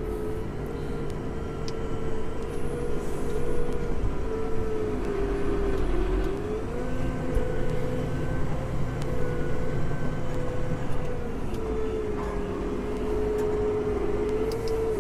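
Tractor engine running steadily under load while pulling a plough, with a continuous whining tone that dips and then rises slightly around the middle.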